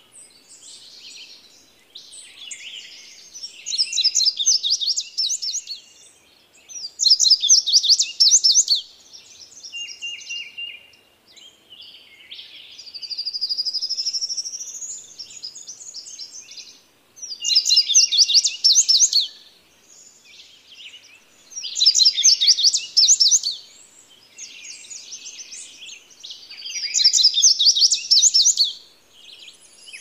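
Indigo bunting singing: five loud songs, each about two seconds of quick, high repeated notes, with softer chirps between them.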